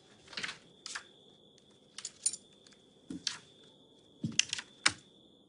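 Playing cards being dealt and flicked onto a felt card table: a series of about eight short, light snaps and slaps spread unevenly over a few seconds, over a faint steady high-pitched tone.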